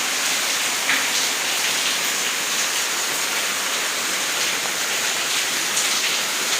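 Heavy monsoon rain pouring down with a steady, even hiss, with a few louder drops ticking through it.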